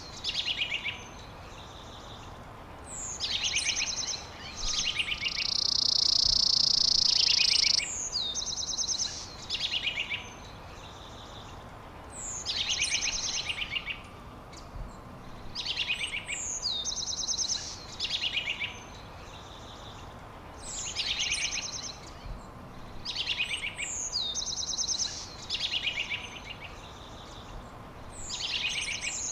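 A songbird singing the same short phrase over and over, roughly every two to three seconds: a quick high downward note and then a fast trill. About five seconds in, a loud harsh buzz lasts about three seconds.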